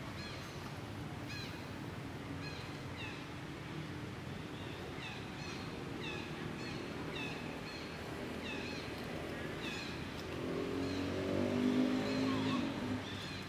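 Short, high, falling chirps repeat about every half second to a second. About ten seconds in, a low droning sound with several pitches swells up, becomes the loudest thing near the end, then fades.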